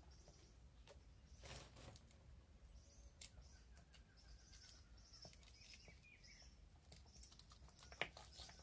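Faint, scattered snaps and rustles of green bean pods being split open by hand and the beans shelled into a plastic bowl, with a sharper click near the end. Birds chirp faintly in the background.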